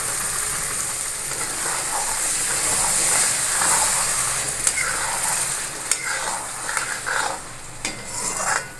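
Freshly added tomato paste sizzling in hot mustard oil in a metal kadhai while a metal spatula stirs and scrapes it, with a few sharp clicks of spatula on pan. The sizzle eases off near the end.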